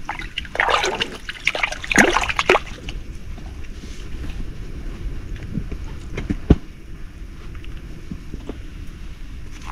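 Water sloshing and splashing in an ice-fishing hole, with a dense crackle for about two seconds near the start, then quieter sloshing and small clicks, with one sharp knock about six and a half seconds in.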